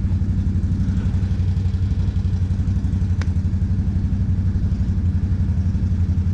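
ATV engine idling steadily, a fast even low pulse, with a single sharp click about three seconds in.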